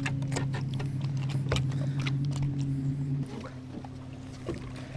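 A steady low motor hum on a small boat, dropping in level about three seconds in, with scattered knocks and clicks.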